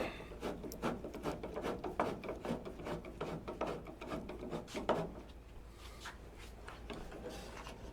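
Irregular light clicks, knocks and scraping of hand work on a pickup truck's door hardware, with a sharper knock about five seconds in, then quieter handling.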